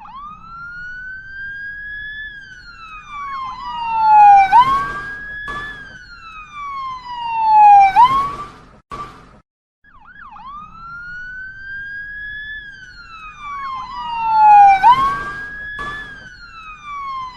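Ambulance siren wailing in long rising and falling sweeps, swelling loud twice in each cycle. The siren effect loops, starting over about ten seconds in.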